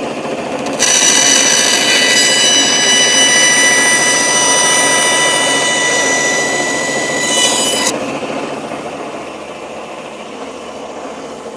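A Shopsmith bandsaw cuts through the wooden insert blank for about seven seconds, starting about a second in, with a loud, steady sawing sound. The saw then runs on without cutting, fading away toward the end.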